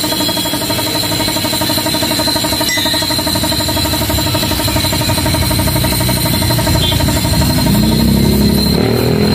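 A motorcycle engine idling steadily. Near the end a deeper engine note comes in and rises a little.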